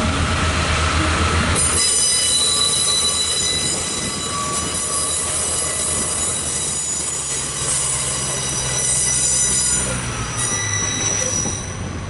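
Pacer diesel railbus running into the platform, its wheels squealing with several high steady tones over the low drone of its underfloor diesel engine. The squeal sets in about a second and a half in.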